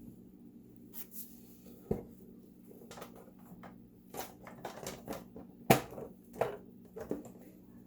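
Irregular clicks and knocks of plastic refrigerator ice maker parts being handled and fitted, the sharpest about two seconds in and near the middle, over a steady low hum.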